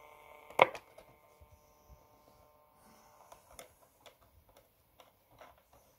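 Regentone seven-transistor portable radio with no programme coming through, only faint crackle and scattered soft ticks from its speaker. There is one sharp click about half a second in, and faint steady whistle tones that die away by about three seconds.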